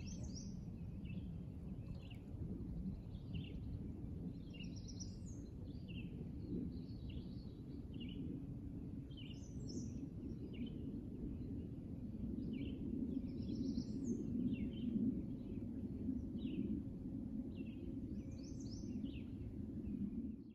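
Faint outdoor lake ambience: small birds chirping, short high calls about one or two a second, over a steady low rumble.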